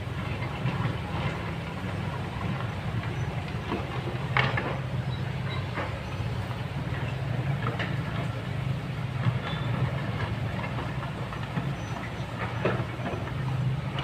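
A Kobelco hydraulic excavator's diesel engine running steadily. Sharp knocks and clatter of rock come every few seconds as its bucket works a pile of stones, the loudest about four seconds in.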